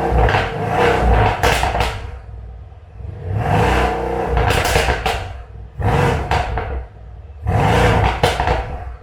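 Mercedes-AMG C63 S twin-turbo V8 revved in about five quick blips, each rising and dropping back, with sharp pops and crackles from the exhaust as the revs fall.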